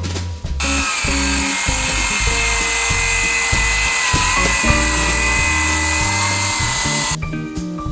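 Ryobi ONE+ brushless cordless circular saw cutting, a steady high whine that starts about half a second in and stops suddenly near the end, over background music.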